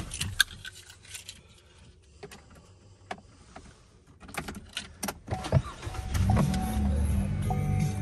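Light clicks and key rattles, then about five and a half seconds in the Chevrolet Colorado's 3.6-litre V6 cranks, starts and settles into a steady idle. Short, repeated dash warning chimes sound over the idle near the end.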